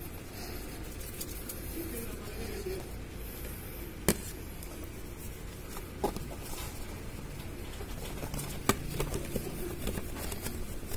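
A clear plastic cover being handled on a tiled tabletop: two sharp clicks about four and nine seconds in, with a softer one between, over steady background noise.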